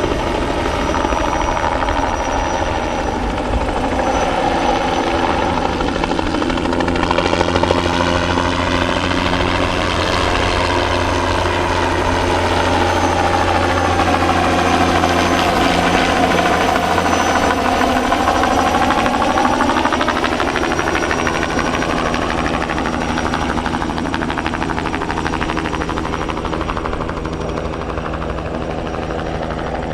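Bell 206B-3 JetRanger III helicopter flying past low, with its rotor chop and turbine running steadily. A sweeping change in tone builds toward the middle as it passes closest, and the sound eases a little near the end.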